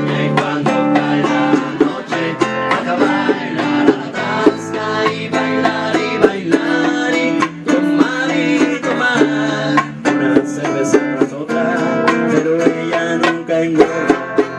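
Acoustic band playing an instrumental passage between sung verses, led by plucked and strummed acoustic guitars with a steady rhythm.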